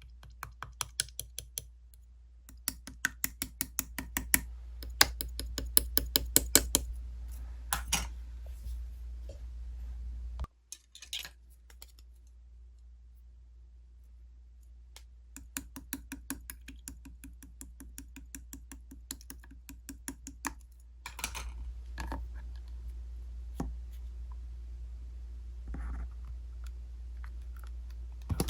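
Slime being pressed and squeezed by hand, giving runs of crisp clicking pops several times a second, in bursts with short pauses. A steady low hum runs underneath.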